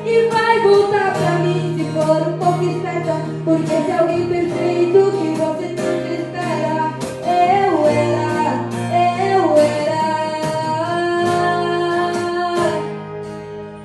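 A woman singing a sertanejo song over a strummed guitar, with steady low bass notes under the melody.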